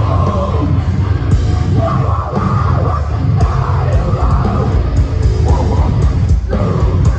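Heavy metal band playing live through a loud PA: down-tuned distorted guitars, bass and drums with crashing cymbals, heard through a phone-style recording that clips and blurs the low end.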